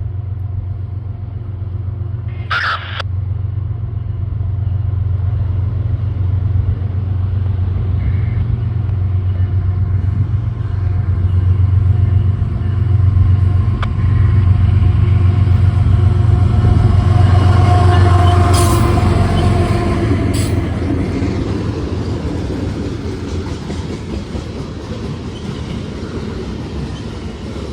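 CSX freight train's diesel locomotives running past, a steady low engine drone that builds to its loudest and then eases off as the train rolls by, over wheel-on-rail noise.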